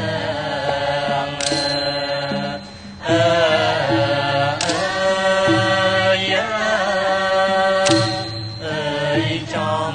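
Khmer mahori chorus: several voices sing a slow melody together in long, wavering held notes, with the ensemble playing beneath. The singing drops away briefly about two and a half seconds in, then the group comes back in.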